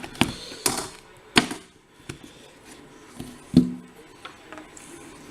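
Small metal lockpicking tools and parts clicking and tapping as they are handled, several sharp separate clicks with the loudest about three and a half seconds in.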